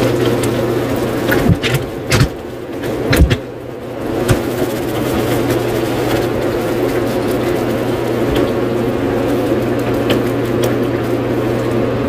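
A steady motor hum, with a few short knocks about one and a half to three and a half seconds in.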